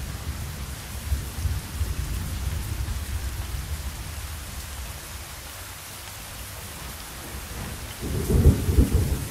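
Thunderstorm: steady rain with low rolling thunder, and a louder rumble of thunder about eight seconds in.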